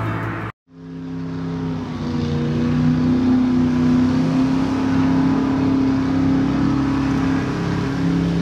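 Motorboat engines droning steadily over open water, their pitch wavering slightly, after a brief drop to silence about half a second in.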